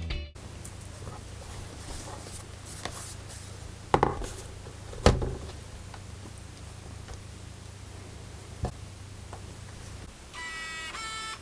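A few sharp knocks and clicks of a laptop being handled over a low steady hum, the loudest two about four and five seconds in. Near the end comes a short pitched tone with several overtones that breaks off once.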